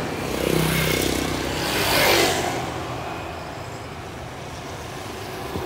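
A road vehicle passing close by: engine and tyre noise swells to a peak about two seconds in, then fades to a lower steady traffic hum.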